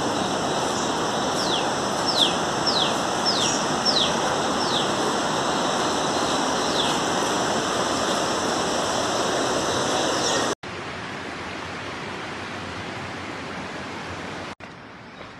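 Steady rushing of falling water, with a run of short, falling bird whistles over the first several seconds. The sound cuts off abruptly twice, each time to quieter rushing.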